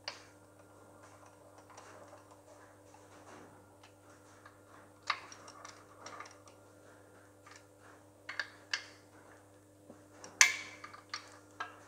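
Scattered, irregular metallic clicks and taps of a long-shanked hand tool working the small bolts of a bearing support in a tractor gearbox housing, under a faint steady hum. The sharpest tap comes about ten and a half seconds in.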